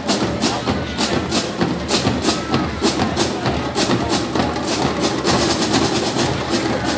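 Fanfare band playing carimbó-style music live, driven by a fast, steady percussion beat.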